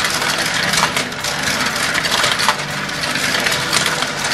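Many marbles rolling and clattering through a GraviTrax marble run: a continuous rolling rattle over the plastic track pieces and metal rails, full of quick clicks, with a few sharper knocks as marbles drop and strike each other.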